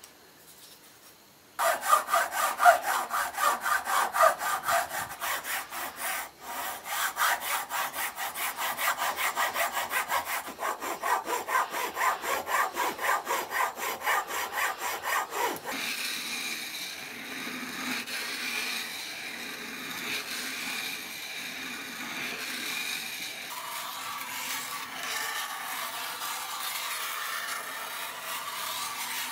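A hand saw cutting through a small wooden blank in quick, even back-and-forth strokes, about three a second. About halfway through, the sawing stops and gives way to a steadier, softer scraping of a small steel blade being rubbed on a diamond sharpening stone.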